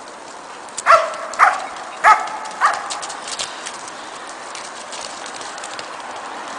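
A dog barks four times in quick succession, starting about a second in, followed by a spell of light clicking and crackling.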